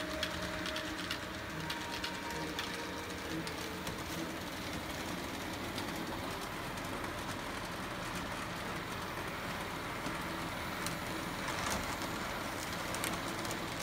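HO-scale model train running on layout track: a steady whir from the locomotive with faint clicks of wheels over the rails, more of them near the end.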